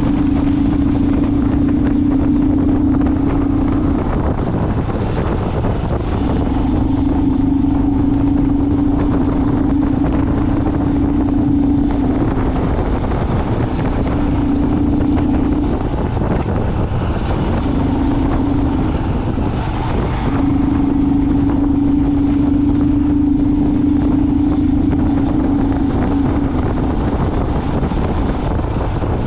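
Vehicle driving on a road: a steady drone that drops out now and then, over a constant low rumble and wind noise.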